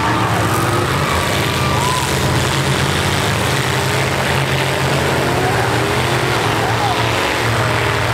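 Demolition derby trucks' engines running with a loud, steady drone, with voices mixed in.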